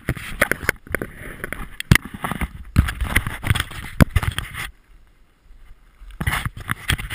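Camera handling noise: fingers rubbing and knocking on the camera body right by its microphone, a dense run of scrapes and knocks for about four and a half seconds, then another short burst near the end.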